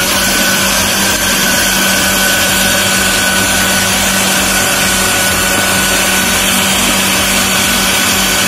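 Electric food processor (chopper) running at a steady speed, grinding a chicken meatball paste: a constant high motor whine over the whirring rush of the blade.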